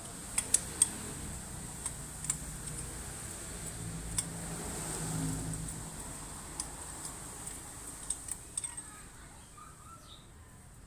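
Scattered sharp metallic clicks and clinks of hand tools and spark plugs being handled, a dozen or so light taps at irregular intervals.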